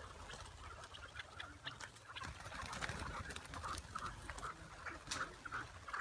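Many chukar partridges calling together in short, repeated notes, with scattered sharp clicks among them.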